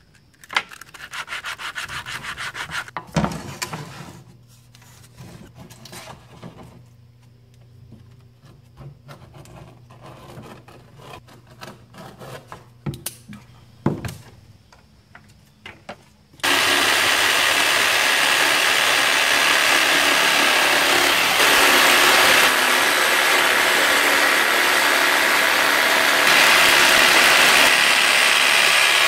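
Wood being sanded by hand, a run of quick rubbing strokes, then quieter scraping and handling with a few sharp knocks. About halfway through, a corded electric saw starts suddenly and runs steadily, cutting a wooden board.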